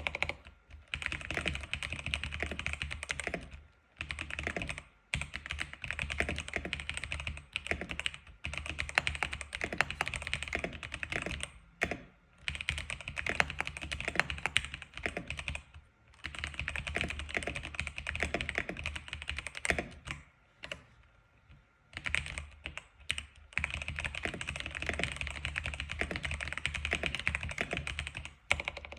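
X87 keyboard being typed on: fast, continuous runs of key clicks, broken by brief pauses and one longer pause about two-thirds of the way through.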